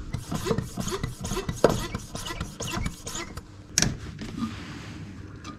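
Hands handling brake-bleeding gear: a plastic brake-fluid bottle and bleeder hose fittings rubbing, scraping and clicking in an irregular run, with one sharper click a little under four seconds in.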